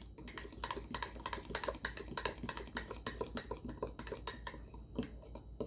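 Fork beating cake batter in a mug: quick, regular clinks of the metal tines against the mug's sides, several a second, with a soft wet stirring of the batter beneath.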